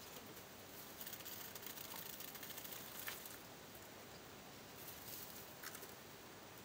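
Faint rustling and scratching of dry hay as African pygmy mice move through it. There is a sharp tick about three seconds in and a couple of short ticks near the end.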